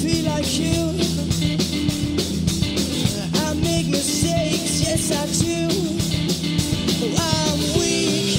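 Rock band playing live: two electric guitars, bass guitar and drum kit, with drums and cymbals keeping a steady beat under gliding guitar lines.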